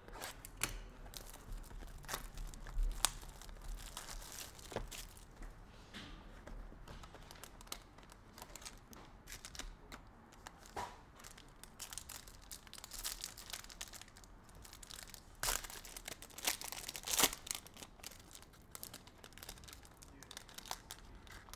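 Packaging of a 2022 Bowman Inception trading-card box being handled and torn open: irregular crinkling, tearing and sharp rustles, loudest in two bursts about two-thirds of the way through. Near the end the foil card pack crinkles as it is pulled open.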